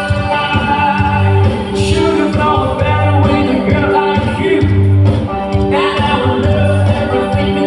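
A song with a singing voice over a band, with a repeating bass line.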